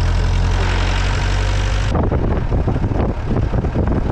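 Jeep engine running steadily, then about two seconds in the sound changes abruptly to an uneven rumble with repeated knocks and rattles as the jeep is driven over rough off-road ground.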